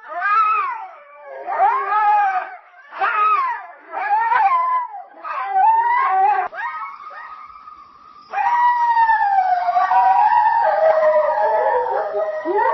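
Wolves howling: a run of short howls that rise and fall. From about eight seconds in comes a long, drawn-out howl with several voices overlapping.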